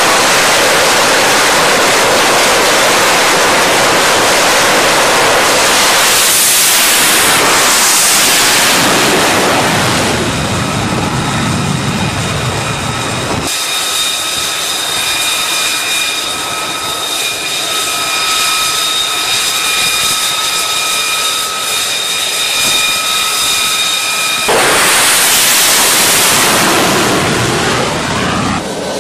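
F-35C fighter's F135 jet engine running at high power on a carrier deck, a loud steady rush of jet noise. Partway through it drops to a quieter, steadier engine sound with several high whining tones, then near the end a loud rush of jet noise swells and fades as the jet launches.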